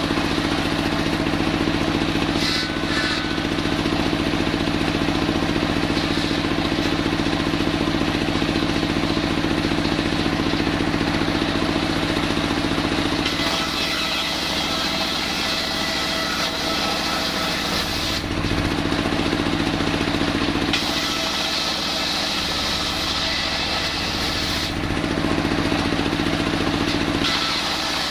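Stationary single-cylinder diesel engine running steadily, belt-driving a circular saw bench. From about halfway through, the spinning blade rips lengthwise through a wooden plank with a loud hissing cut that breaks off briefly twice.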